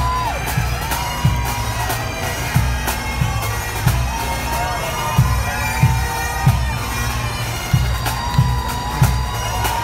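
Highland bagpipes playing a march tune over their steady drones, with a regular low beat about every two-thirds of a second.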